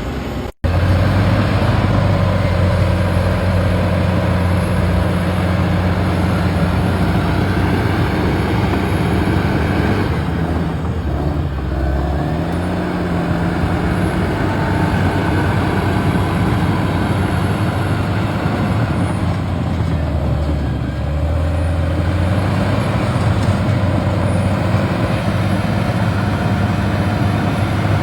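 A motor vehicle's engine running with a steady low drone, its pitch shifting a couple of times along the way. The sound cuts out for an instant just under a second in.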